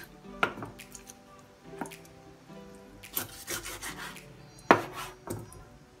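Kitchen knife cutting raw chicken on a plastic cutting board: rubbing, slicing strokes, with the blade knocking the board several times, the sharpest nearly five seconds in.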